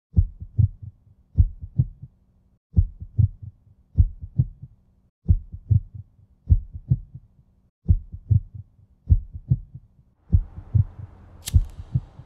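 Heartbeat sound effect: low double thumps repeating about every 1.2 seconds over a faint steady hum. About ten seconds in, a hiss rises beneath the beats, and a sharp click near the end is a lighter being flicked on.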